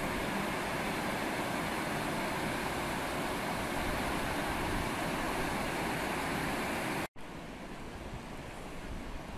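Swollen floodwater from rain and snowmelt rushing steadily. About seven seconds in it cuts off abruptly and gives way to a quieter rush.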